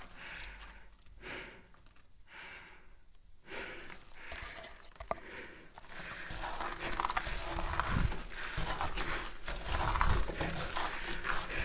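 A person breathing hard, slow regular breaths at first, then scuffing, knocks and rustling of clothing and gear as they move over concrete in a cramped passage.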